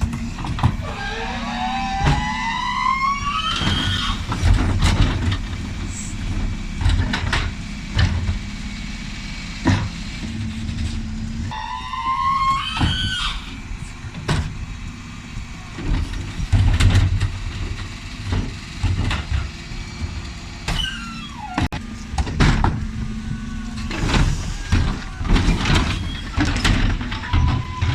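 Dennis Elite 6 bin lorry running, with its Terberg OmniDEKA bin lifters cycling: a rising whine as the engine revs up for a lift, twice, and a falling whine later on, among repeated bangs and clatters of wheelie bins striking the lifter as they are tipped.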